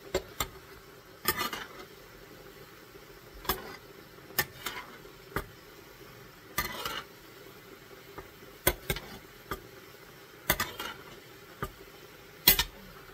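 Spoon clinking and scraping against a pan and bowl as excess cooking liquid is ladled off browning elk meat, in about a dozen irregular strokes with the loudest near the end. A faint steady simmer runs underneath.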